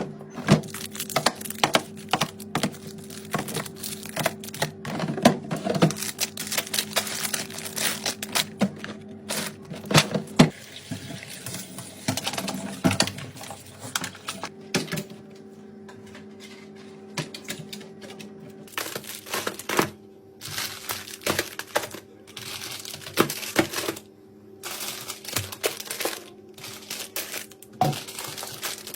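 Plastic grocery packaging crinkling and plastic containers clacking as groceries are unpacked and put away, a dense run of short, sharp clicks and rustles over a steady low hum.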